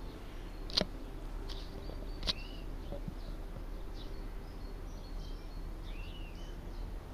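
Small birds chirping now and then, one giving an arching call near the end, over a steady low outdoor hum. Two sharp clicks come about a second and about two seconds in.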